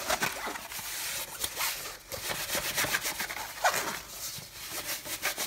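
Rustling and rubbing of a diamond painting canvas being rolled up around a foam tube, in short scratchy strokes, with a short squeak about three and a half seconds in.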